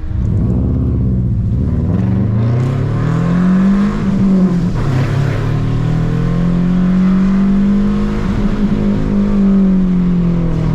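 Subaru Impreza 2.5 RS's 2.5-litre flat-four engine pulling hard on an autocross run. The revs climb for about four seconds, drop with an upshift, climb again and hold high, then ease off near the end, over a hiss of wet tyres and rain.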